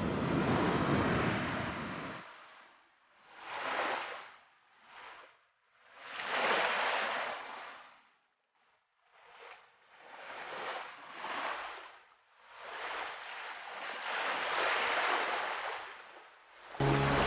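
Ocean surf: waves breaking and washing up the shore in swells that rise and fade every few seconds. The first wash is heavy and rumbling; the later ones are lighter.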